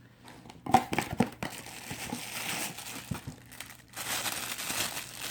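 Plastic packaging crinkling as items are unwrapped and handled, with a few light knocks about a second in.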